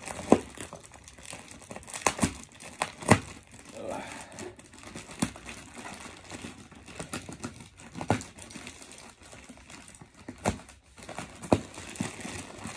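Grey plastic mailer wrapping and brown packing tape crinkling and tearing as a parcel is picked open by hand, with irregular sharp snaps scattered through.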